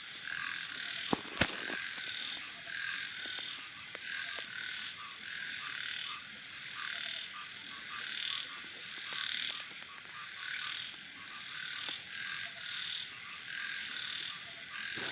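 Frogs croaking in a chorus of repeated pulsing calls over a steady high-pitched whine, with a couple of sharp clicks about a second in.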